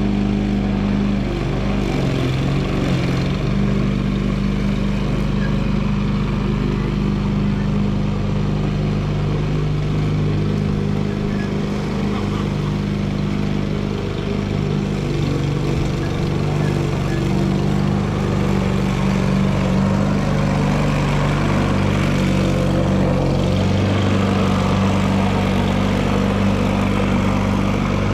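Walk-behind gas lawn mower engine running steadily while mowing, its pitch shifting a little now and then.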